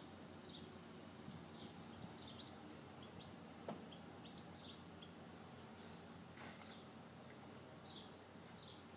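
Faint chirps of small birds: short, high notes repeated irregularly about once a second over quiet outdoor background hum, with a single faint click about three and a half seconds in.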